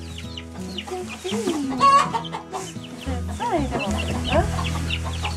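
Chickens clucking, with many short, overlapping calls.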